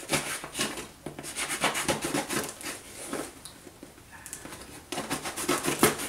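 Rustling and scraping of a cardboard shipping box and its packing being opened by hand, in irregular crackles.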